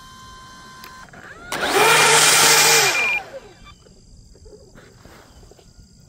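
Electric motor and propeller of an FMS Cessna 182 RC model plane run up in reverse thrust to brake the landing rollout. A loud whine with a rush of propeller air climbs, holds for about a second and a half, then winds down.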